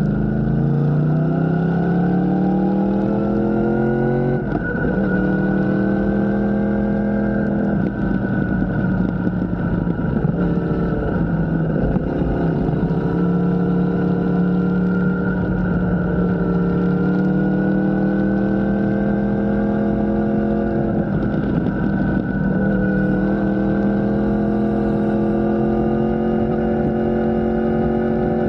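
A motor engine running steadily. Its pitch climbs slowly over several seconds, drops back abruptly a few times, and climbs again.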